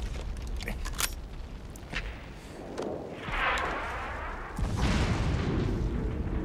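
Battle sound effects: a few sharp cracks, then a whoosh, then a heavy artillery explosion bursts in about five seconds in and leaves a long low rumble.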